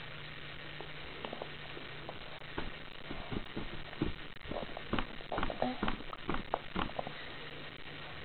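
A baby's hands tapping and patting a plastic Chicco high-chair tray: an irregular run of light taps starting about two and a half seconds in and thickest just past the middle, over a steady low hum.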